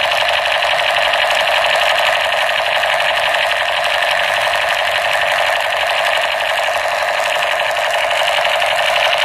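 Battery-powered 'Super Force' toy machine gun's electronic firing sound effect from its built-in speaker: a rapid, steady, unbroken buzzing rattle of shots while the trigger is held.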